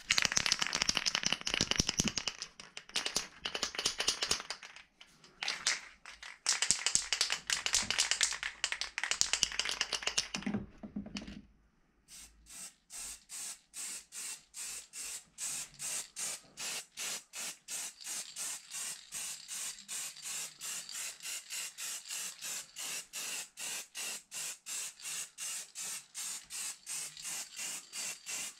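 An aerosol spray-paint can being shaken hard, its mixing ball rattling for about ten seconds with a couple of short pauses. Then a long run of short, evenly spaced hisses of paint spraying, about two or three a second.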